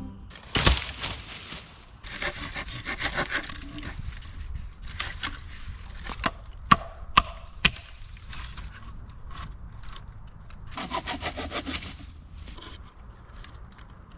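Wood being worked by hand: bursts of rapid rasping strokes, like sawing, and sharp knocks, with one knock about half a second in and three quick knocks around seven seconds in.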